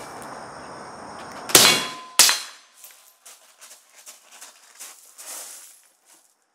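Two shots from an LWRC 10.5-inch short-barreled rifle fitted with an AAC 762SDN-6 suppressor, about two-thirds of a second apart, each trailing off in echo. Then boots crunching on gravel as the shooter moves.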